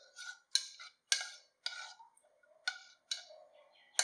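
Metal spoon stirring dal and water in a metal pressure cooker, giving a series of sharp clinks and scrapes against the pot's wall, about two a second.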